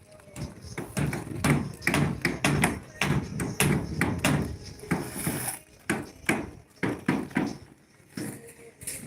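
Irregular knocks and thuds, about two a second: hammering and banging on timber formwork (centring) as it is put together.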